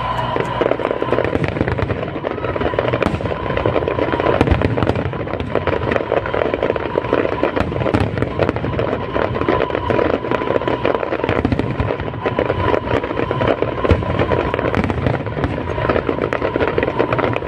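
Aerial fireworks display: a dense, continuous crackling and popping of many small bursts.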